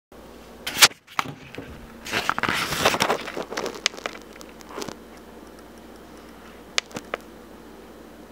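Handling noise from the camera being picked up and moved: a sharp knock about a second in, a couple of seconds of rustling and scraping, then two short clicks near the end.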